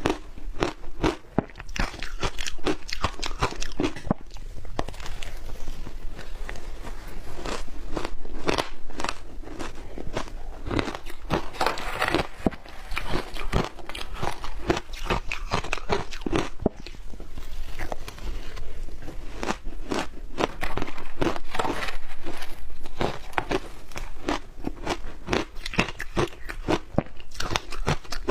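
Close-up crunching and chewing of shaved ice coated in matcha powder, with rapid, irregular crunches that go on without a break.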